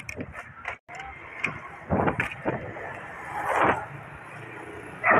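Riding noise from a moving bicycle: wind rushing over the camera's microphone in a few swells, over the rumble of tyres on asphalt. The sound drops out briefly about a second in.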